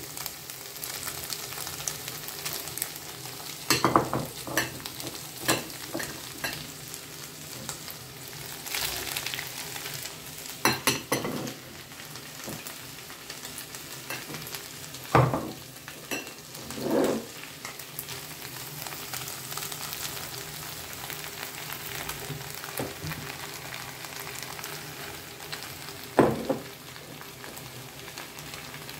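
Beef, onion, zucchini and eggplant sizzling steadily in a hot frying pan just after the vegetables have gone in on the browned meat. Several short knocks and scrapes of stirring and handling break in through it.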